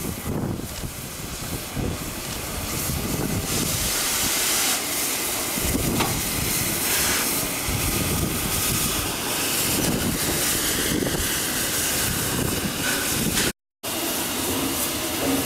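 Steam hissing loudly from the Peppercorn A1 Pacific steam locomotive No. 60163 Tornado as it moves slowly. The hiss grows stronger a few seconds in, and the sound breaks off for a moment near the end.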